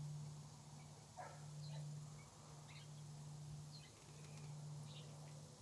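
Faint, soft quail calls: one short call about a second in and several brief high peeps scattered through, over a steady low hum.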